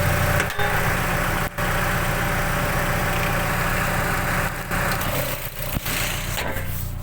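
Mazda MX-5 NC1's 2.0-litre MZR four-cylinder engine running, heard from under the bonnet with loud intake noise from its cold air intake. The sound dips sharply for an instant a few times and settles quieter near the end.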